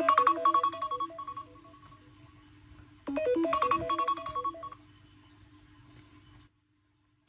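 Smartphone ringtone: a short melody of quick electronic notes plays once, then again about three seconds later, each time fading away, before the sound cuts off near the end.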